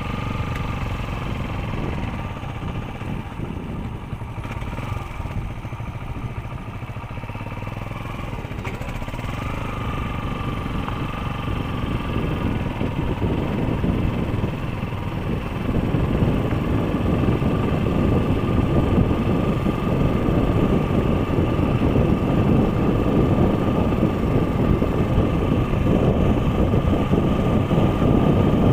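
Motorcycle engine running steadily while ridden, with a broad rushing noise that gets louder about halfway through as the bike picks up speed.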